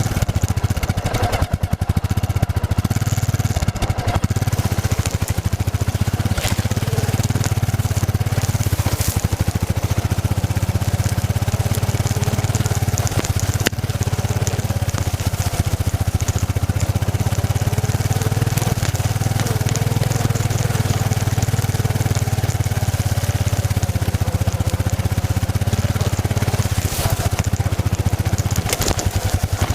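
Yamaha XT660Z Ténéré's single-cylinder engine running steadily as the motorcycle is ridden.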